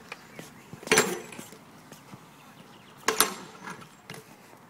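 Two sharp impacts of a BMX bike hitting the ground, about two seconds apart, the second with a quick rattle after it.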